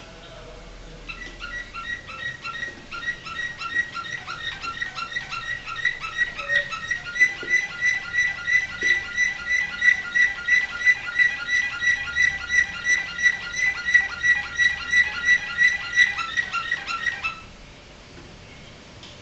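Canary singing one long phrase of the same note repeated evenly, about three times a second on a steady pitch. It builds in loudness over the first few seconds and stops abruptly near the end.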